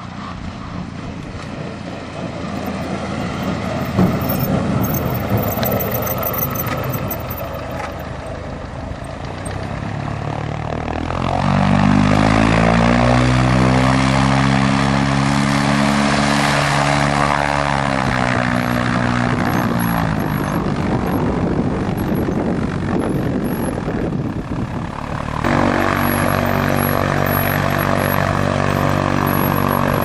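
Propeller engine of an LN-3 Seagull pusher amphibian running on a gravel strip. Its note rises about eleven seconds in, holds for several seconds, then falls away. After a sudden change near the end, the engine idles with a steady note close by.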